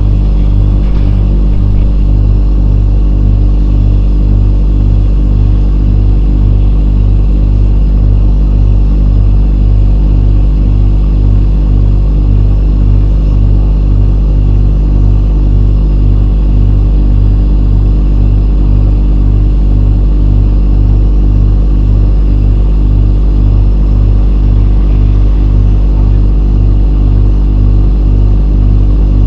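Steady, loud machine drone with a deep hum and an even low pulse about twice a second, unchanging throughout.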